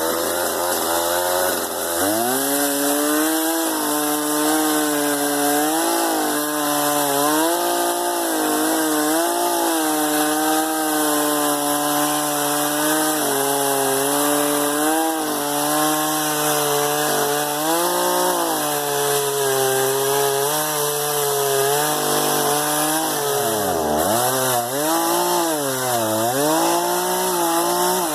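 Chainsaw running at low speed, then throttled up about two seconds in and cutting into a tree trunk. The engine pitch dips and recovers again and again as the chain bites into the wood, and drops most deeply near the end.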